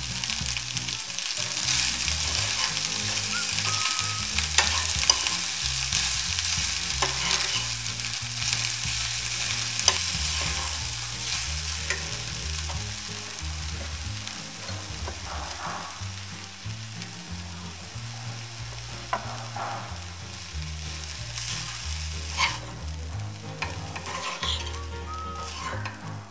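Spinach rice sizzling in a frying pan as it is stirred with a steel spoon, with scattered clinks of the spoon against the pan. The sizzle is loudest in the first half and eases off once the stove is turned off.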